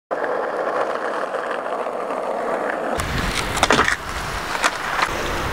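Skateboard wheels rolling with a steady rumble over rough asphalt, then a rumble of wind on the microphone with a few sharp clacks.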